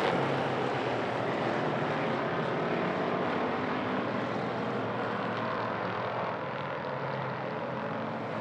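Several hobby stock race cars running hard around a short oval, their engines a steady, mingled drone that eases a little in the second half.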